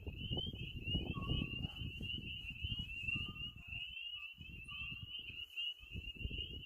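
Steady high-pitched chorus of calling frogs, a dense run of short repeated notes, with wind rumbling on the microphone underneath and a few faint short tones breaking through now and then.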